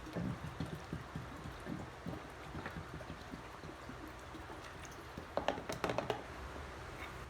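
Sawmill's petrol engine running steadily, with a cluster of sharp clicks and rattles about five to six seconds in.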